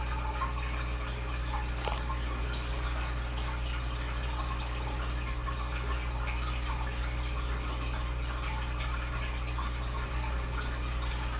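Steady low hum with a constant trickle of dripping water over it.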